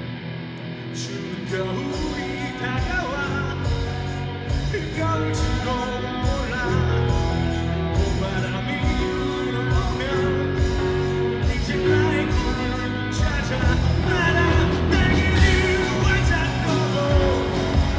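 Male voice singing a Korean rock song live, backed by a rock band. The drums and bass come in about a second in, with a louder cymbal crash near the end.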